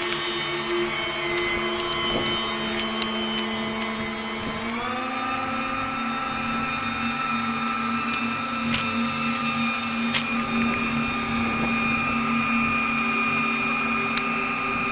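Electric ducted fan of a home-built RC plane running with a steady whine, its pitch stepping up about a third of the way through and then holding at the higher speed.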